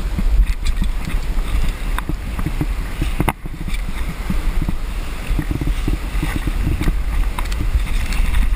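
Wind buffeting the microphone of a body-worn camera, a steady low rumble, with scattered scrapes and knocks as the climber moves against the rock.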